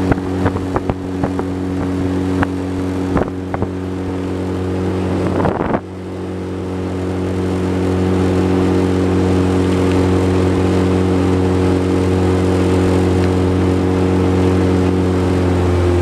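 Outboard motor pushing a small open metal boat, running at a steady pitch. A few sharp knocks come in the first several seconds; about six seconds in the sound dips briefly, then builds back up over the next couple of seconds.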